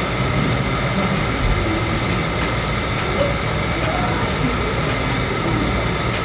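Steady room noise, a constant low hum and hiss with a few faint steady tones, with no distinct events.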